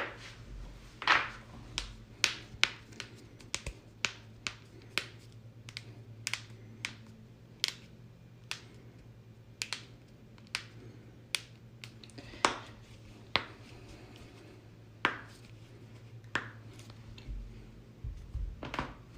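Joints cracking and popping in a long irregular series of sharp clicks, about one to two a second, with a few much louder pops.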